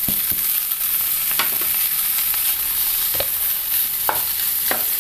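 Onion and spice masala sizzling steadily in a stone-coated nonstick pan, with a wooden spatula scraping and tapping against the pan a handful of times as shredded cooked chicken is stirred in.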